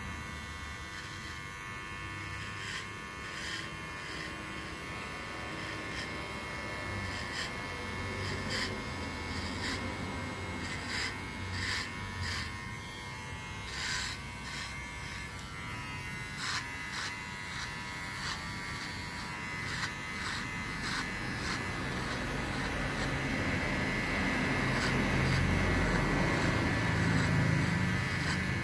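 Xiaomi Enchen Hummingbird cordless electric hair clipper running with a steady buzz, with many short crackles over it. It grows louder near the end.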